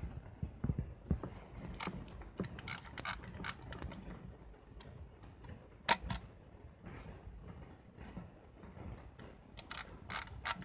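Small mechanical clicks and rubbing from an Olympus Pen EE-3 film camera being handled in gloved hands: clicks of the ring on its lens being turned, then the camera being turned over. One sharper click comes about six seconds in, and a few quick clicks come near the end.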